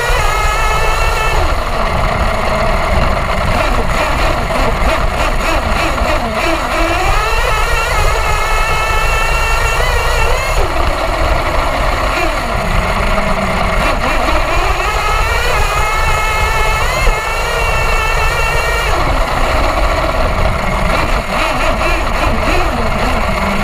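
Nitro glow engine of an HPI Savage XL RC monster truck, heard from a camera on the truck, revving up several times as it accelerates and dropping back in between. A steady low rumble runs under it.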